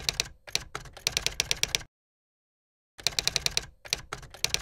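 Typing sound effect: runs of rapid, sharp key clicks. It breaks off for about a second of dead silence roughly two seconds in, then starts again.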